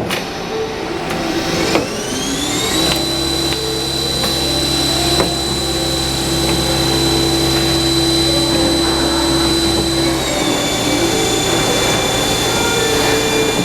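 GAU-TECH KS-32E CNC lathe running during automatic screw loading and machining: a high whine rises about two seconds in, holds steady over a low hum, drops a little around ten seconds in, then climbs again near the end.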